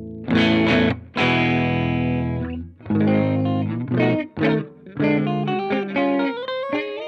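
Electric guitar played through a Ground Control Serpens optical boost/compressor pedal: two strummed chords, the second left ringing, then a picked single-note riff with sliding notes near the end.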